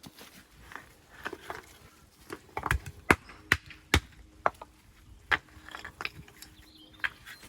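Stones knocking together in a run of sharp clacks, about two a second at first, then more spaced out, with lighter crunches between them.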